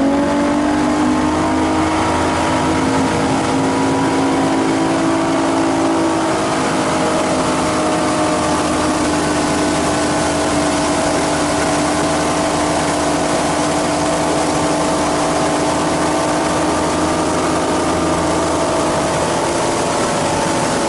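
Bass boat outboard motor running at speed: a steady, loud drone that holds almost the same pitch throughout.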